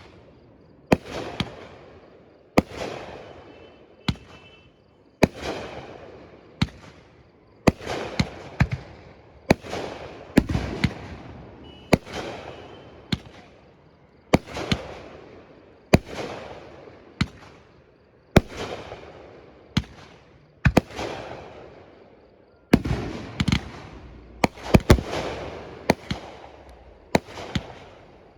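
Fireworks display with a sharp bang every second or so, each followed by a fading rumble. The bangs come faster and closer together over the last few seconds.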